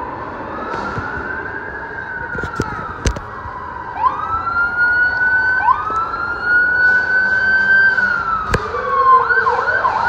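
Emergency vehicle sirens wailing, slowly rising, holding and falling in overlapping sweeps, switching to a fast yelp near the end. A couple of sharp clacks cut through.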